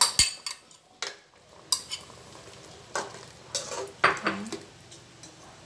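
A spoon stirring sliced saba bananas into a pot of coconut milk, knocking and clinking against the pot several times.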